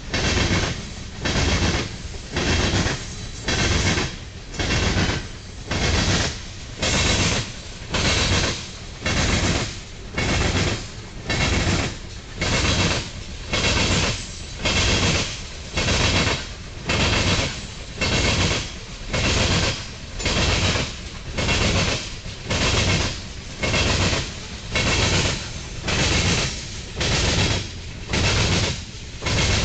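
Union Pacific coal train rolling past, its car wheels clacking over the rail joints in a steady rhythm of about one loud burst a second.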